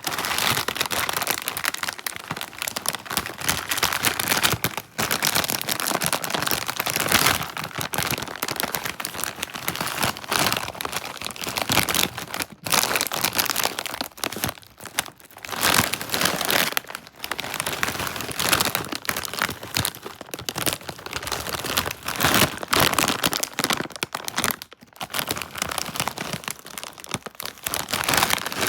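A foil chip bag of Lay's crisps crinkling loudly and continuously as it is handled and opened, in a dense crackle of sharp clicks with a few brief pauses.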